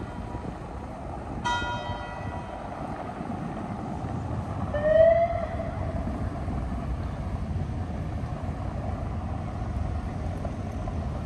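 A church bell strikes once, about a second and a half in, and rings out over a steady low city rumble. Around five seconds in, a short loud pitched call rises and then holds briefly; it is the loudest sound.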